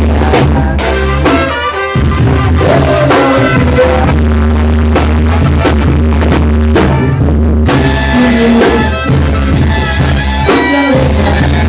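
Loud music with a heavy, steady bass line, held notes and a melody, with drums and a brass-like lead.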